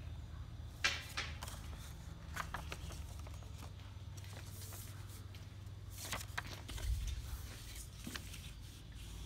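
Paper rustling and crackling as a folded paper airplane is handled and its creases are pressed. There are a few sharp crackles, the loudest about a second in and another cluster about six seconds in, over a steady low hum.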